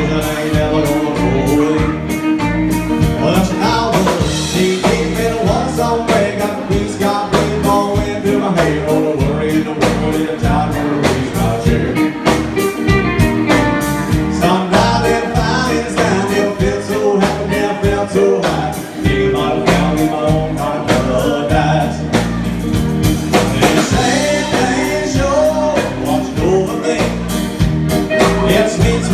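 Live band playing through a PA system: electric guitars and singing over a steady beat, loud and continuous.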